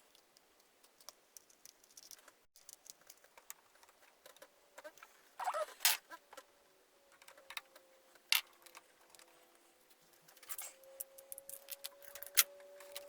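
Light clicks and taps of handling the paint cup and pigment bottle, then from about halfway a faint electric drill whine as it spins a wire mixer in the paint, slowly rising in pitch and swelling near the end.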